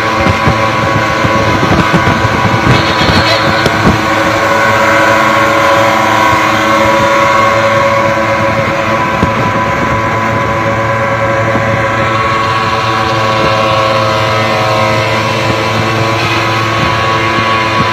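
Suzuki two-stroke pickup engines running flat out in a race, a steady droning note that drifts slightly in pitch. Wind buffets the microphone for the first few seconds.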